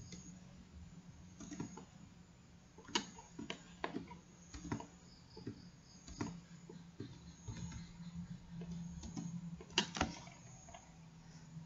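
Irregular clicks of a computer mouse and keyboard keys, a few at a time with pauses, the loudest about three seconds in and again about ten seconds in, over a faint steady low hum.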